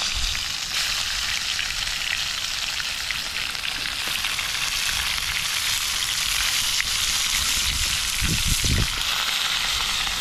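Food frying in a pan: a steady sizzle with small crackles and spits.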